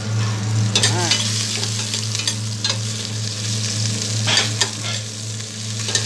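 Food sizzling in a frying pan, with scattered clicks of a utensil stirring, over a steady low hum.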